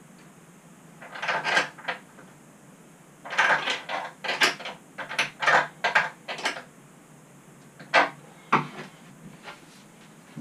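Hand tools and metal hardware being handled: irregular rattling and clattering in short bursts, then two sharp clicks near the end.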